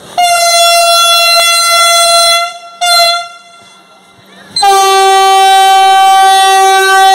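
Vande Bharat Express train's horn sounding as it approaches: a long high blast, a short second blast on the same note, then after a pause a long, lower-pitched blast.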